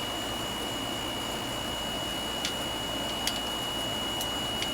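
A few faint, light clicks of small parts and hand tools being handled during mower repair work, over a steady background hiss with a thin high-pitched whine.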